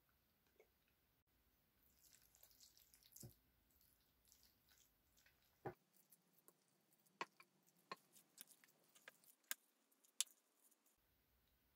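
A metal spoon stirring rice and toppings in a large ceramic bowl: soft scraping and squishing of the food, with sharp clinks of the spoon against the bowl several times in the second half.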